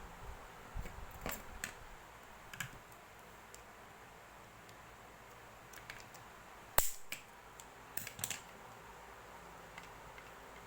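Scattered light clicks and taps of small hard objects being handled, with one sharp click about two-thirds of the way in standing out as the loudest.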